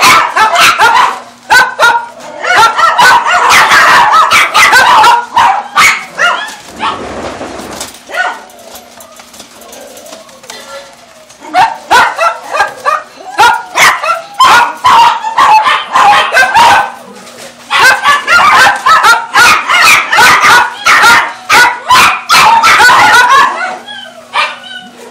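Dogs in kennel cages barking and yapping, many sharp barks overlapping in quick succession, with a quieter lull of a few seconds about a third of the way in.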